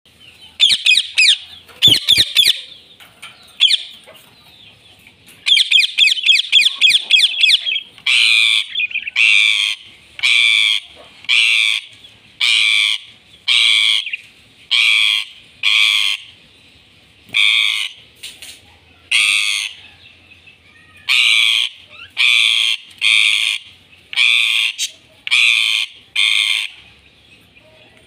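Rose-ringed (Indian ringneck) parakeets calling. Rapid chattering trills come first, then a long series of loud, harsh screeches repeated about once a second.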